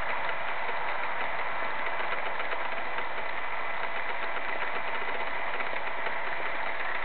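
G-scale model train of a Santa Fe GP38-2 running along its track: a steady, engine-like mechanical hum with faint clicks.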